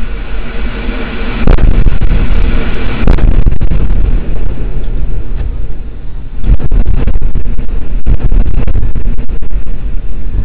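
Chemical plant explosion heard through a car dashcam's microphone: a sudden loud blast about a second and a half in, then a longer run of cracking and rumbling from about six and a half seconds, loud enough to overload the microphone.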